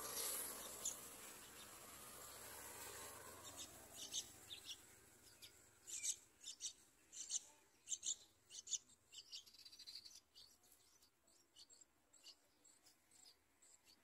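Yellow-vented bulbul nestlings begging at the nest: a run of short, thin, high-pitched cheeps starting a few seconds in, loudest and quickest in the middle, then thinning to faint cheeps. A soft rustle fills the first few seconds.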